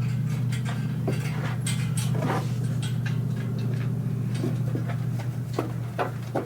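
A steady low mechanical hum, with scattered light knocks and clicks that come more often towards the end.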